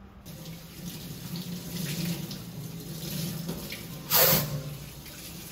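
Kitchen tap running into a stainless steel sink, with a brief louder splash about four seconds in.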